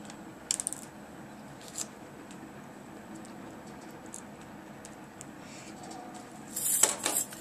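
Plastic clicks and scratching as fingers press the snap-fit screen bezel of a Sony VAIO laptop back into place. A quick run of small clicks comes about half a second in, a single click just before two seconds, and a louder cluster of clicks and rubbing near the end.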